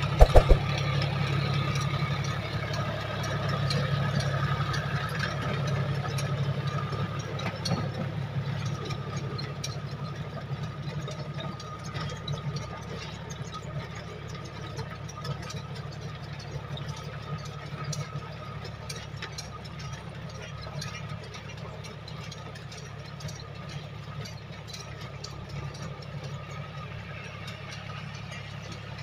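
John Deere tractor's diesel engine running steadily as it works a rotavator through the soil, growing fainter as the tractor moves away. A couple of sharp clicks sound just after the start.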